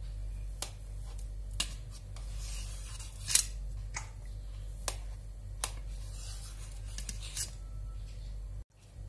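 A serrated knife blade scraping and clicking against the metal centre tube of a cake pan as it is worked around to loosen a baked sponge cake. The sounds come in irregular scrapes and clicks, the loudest about a third of the way in, over a steady low hum.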